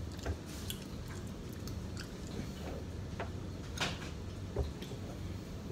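Close-miked chewing, with wet mouth clicks and smacks scattered through.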